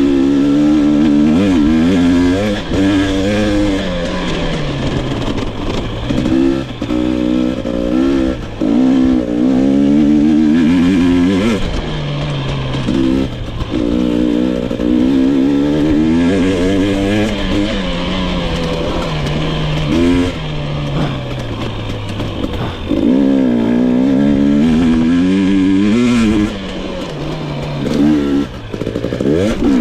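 2022 GasGas EX 250 two-stroke enduro motorcycle engine being ridden hard, revs climbing and falling again and again as the throttle is opened and rolled off, with short dips in between.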